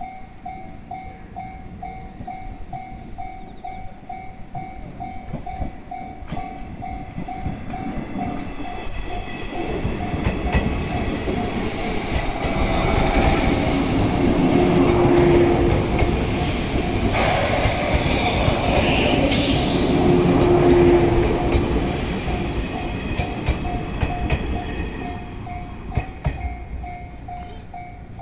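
A six-car JNR Series 185 electric train, running on MT54 traction motors, pulls away and passes close by. It is loudest from about halfway through and fades near the end. Through it all, a level-crossing warning bell rings in an even, repeating pulse.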